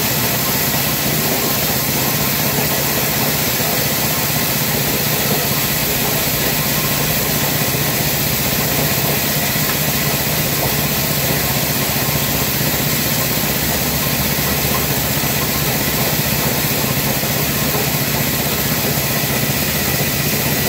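Small engine running steadily, driving a dry coffee huller and its blower fan while the machine hulls dried coffee into green beans.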